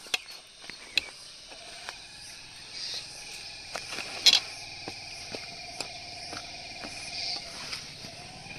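Insects trilling steadily at several pitches, with scattered sharp clicks, the loudest about four seconds in.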